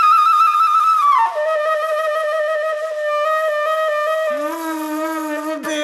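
Flute music: a high held note that slides down to a lower one about a second in, with a second, lower line joining about four seconds in.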